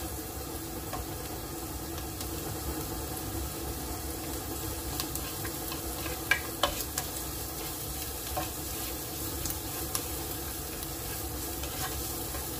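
Diced red onions sizzling in oil in a nonstick pot while a plastic spatula stirs and scrapes them, knocking lightly against the pan a few times. The onions are being sautéed before the garlic is added.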